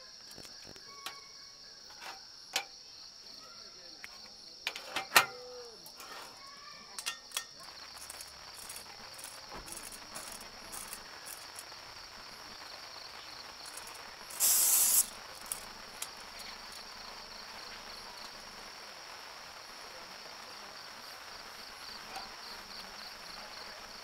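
Crickets trilling steadily, with metallic clicks and clinks from a small folding canister gas stove being handled over the first several seconds. Midway there is a short, loud hiss as the burner is screwed onto its gas canister.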